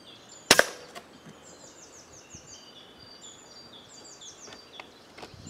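Woodland birds singing: quick runs of high, down-slurred notes and short whistles. A sharp, loud crack about half a second in, with a fainter click a second in.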